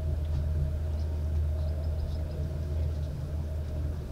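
Electric passenger train running along the line, heard from inside the carriage: a steady low rumble with a faint hum above it.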